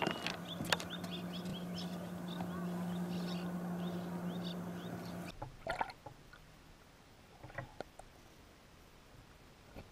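A bird calling a quick series of short chirps, about three a second, over a steady low hum. About five seconds in, the sound drops to a quiet, muffled underwater hush with a few soft knocks.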